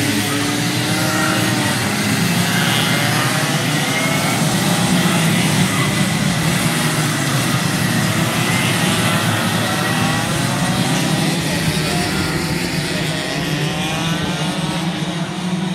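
A pack of 125 cc two-stroke racing kart engines revving up and down as they race past, several engine pitches rising and falling over one another.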